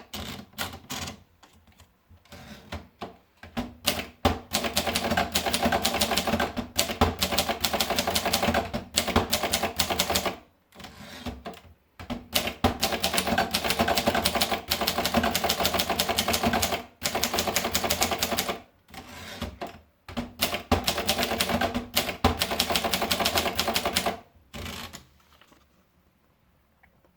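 Brillant Neckermann Junior typewriter being typed on in fast runs of keystrokes, with brief pauses between runs. The typing stops about a second before the end.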